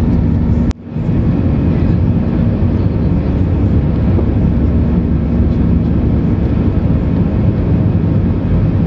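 Steady cabin noise of an Airbus A320's CFM56-5B engines in the climb after takeoff, heard inside the cabin over the wing, a deep even roar with a steady hum in it. A sharp click and a momentary dropout come less than a second in.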